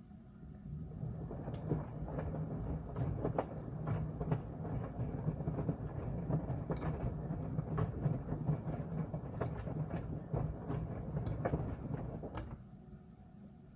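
Washing machine drum turning in a wash cycle: a low rumble with scattered knocks and clicks that starts about a second in and stops near the end, leaving a quieter hum.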